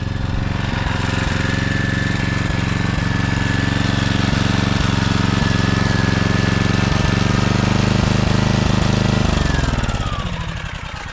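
Small gasoline generator engine running steadily with a fast, even firing beat, then switched off about nine seconds in, its pitch sliding down as it winds to a stop.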